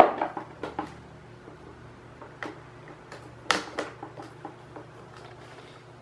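Plastic grille clips of a Mondial 40 cm fan being snapped into place and the grille handled: a scatter of light plastic clicks and clacks, the sharpest about three and a half seconds in.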